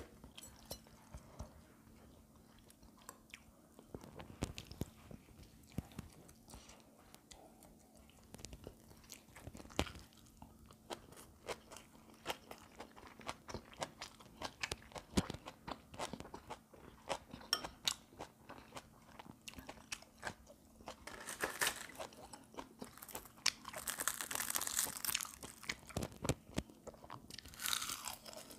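Close-miked chewing of food, with many small crunching bites and wet mouth clicks. Past the middle come a few longer breathy hisses.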